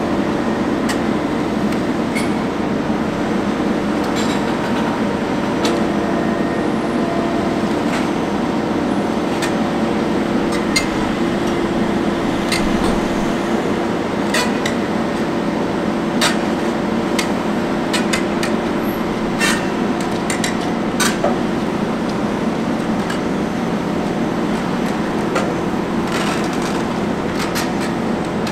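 Bauer GB 50 low-headroom hydraulic grab rig running steadily, with scattered sharp metallic clanks and knocks.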